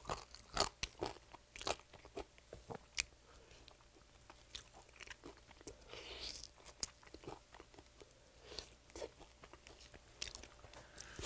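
Close crunching bites and chewing of sauce-coated fried chicken: a scatter of short crisp cracks, thick at first, thinning out in the middle and picking up again near the end.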